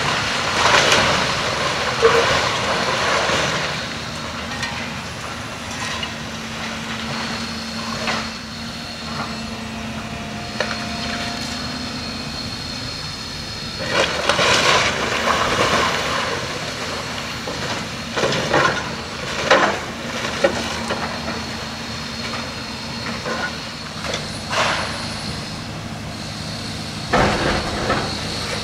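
A heavy demolition machine running steadily, with a high whine over its engine, and several bursts of crunching and crashing as building debris is broken and dropped.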